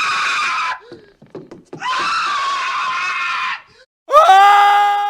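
Cartoon character screams played one after another: a loud held scream cutting off early, a few short scraps of sound, a second long scream, then a third that rises sharply in pitch and holds a steady note.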